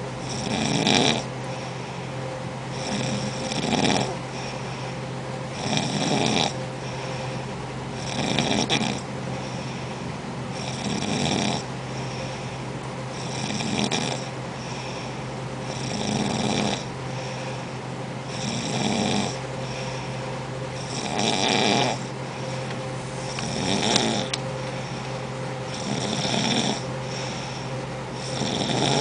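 Steady, rhythmic snoring, one snore about every two and a half seconds, each about the same strength.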